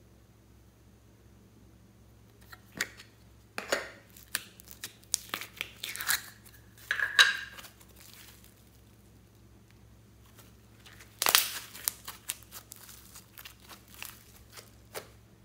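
Hands working slime and its mix-ins close to the microphone: sharp crinkling and crackling sounds. They come in two bursts, one starting about two and a half seconds in and one about eleven seconds in, with a quiet gap between.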